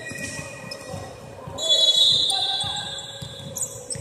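Basketball game on a hardwood court: a ball bouncing and sneakers squeaking in high bursts, loudest around the middle, echoing in a large hall.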